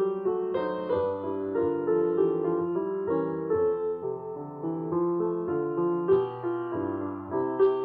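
Background piano music: a melody of changing notes over held lower notes.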